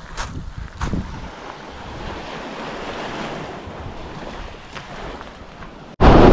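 Small waves washing onto a pebble shore with wind buffeting the microphone, and a couple of short knocks in the first second. Near the end it cuts off abruptly and jumps to a much louder wind rush.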